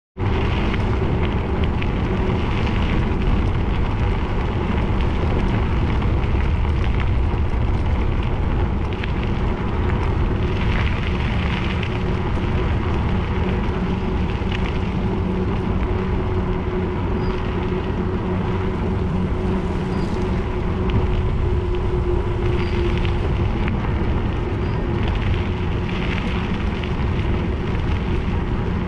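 Steady rumbling noise of wind on the microphone and tyres rolling over a gravel track, with a faint steady hum underneath.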